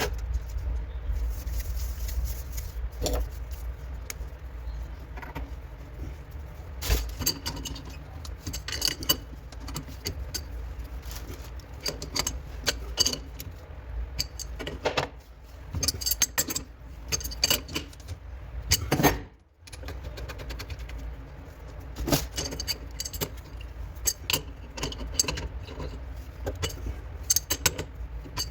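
Irregular metallic clinks and knocks of plumbing tools and faucet fittings being handled, over a steady low rumble.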